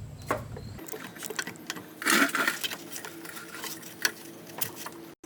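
Light clicks, taps and rattles of hand work on parts under the car, with a brief scraping rustle about two seconds in.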